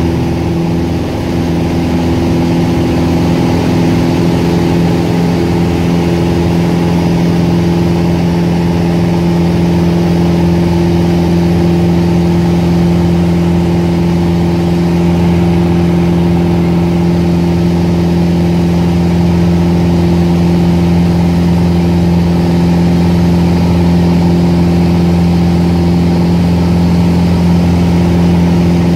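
Piper Warrior's four-cylinder Lycoming O-320 engine and propeller at full takeoff power: a steady drone of unchanging pitch, heard inside the cabin during the takeoff roll, lift-off and climb-out.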